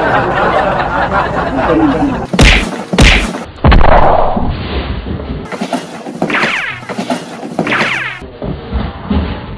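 Three heavy thumps in quick succession, about half a second apart, a couple of seconds in, followed later by two sweeping whooshes.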